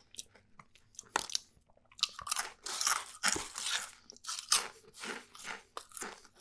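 Close-miked crunching of a potato chip being bitten and chewed: a few light clicks at first, then from about two seconds in a run of crisp crunches, several a second.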